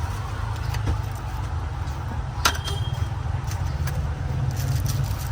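Steady low engine rumble of street traffic, with scattered light clicks and one sharp click about halfway through.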